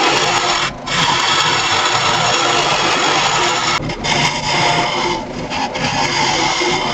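Hollowing tool cutting inside a spinning laminated wood blank on a lathe: a steady, loud scraping hiss that breaks off briefly twice, about a second in and about four seconds in.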